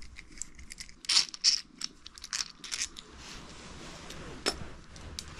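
Metal tools and shock parts being handled at a workbench: a run of short, loud scrapes, then a single sharp click a little after four seconds in.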